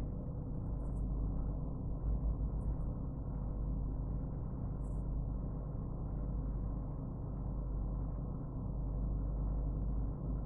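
Steady low hum and rumble of background noise, with a few faint high ticks now and then.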